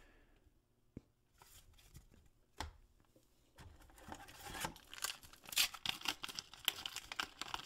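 A few light taps as cards are handled, then from about halfway a 2000 Fleer Tradition card pack's paper wrapper crinkling and tearing as it is ripped open.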